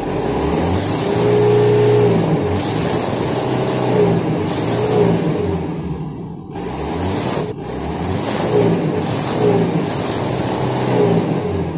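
Truck engine revved in about seven short blips. A rebuilt Mitsubishi Canter flexible exhaust pipe held at the tailpipe gives a high 'sos' / 'ngir-ngir' turbo-like whistle that rises and falls with each rev, a sign that the once-silent, leaking flex pipe whistles again after its repair.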